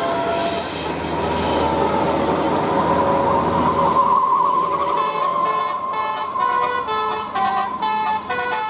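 Bus 'telolet' multi-tone horn playing a tune: a long, slightly wavering held note, then from about five seconds in a quick run of short notes stepping up and down in pitch.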